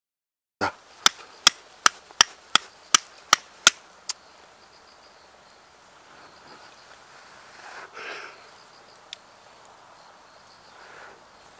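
Steel fire striker struck down the edge of a lump of quartz to throw sparks: about nine sharp clicking strikes, roughly three a second, the last one weaker. Faint rustling of hands handling the char cloth follows.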